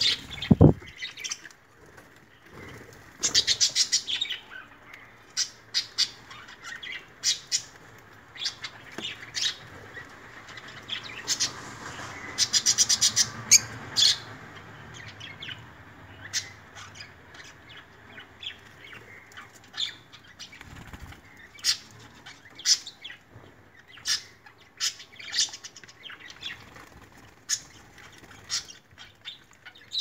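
Lovebirds bathing in a shallow bowl of water: repeated bursts of splashing and wing-flapping, busiest about three seconds in and again around eleven to fourteen seconds, with short chirps in between.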